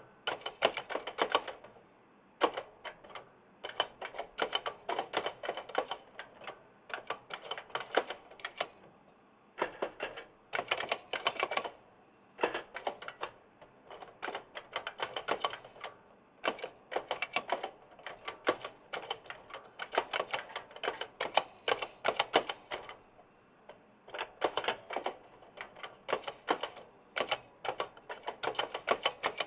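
Oversized mechanical keyboard with Kailh Blue clicky switches being typed on in quick runs of sharp clicks, broken by short pauses, with the switch springs rattling audibly.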